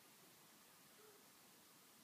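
Near silence: room tone with a faint steady hiss.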